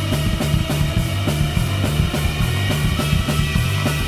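Rock band playing an instrumental passage: drum kit keeping a steady beat under bass guitar and sustained electric guitar notes.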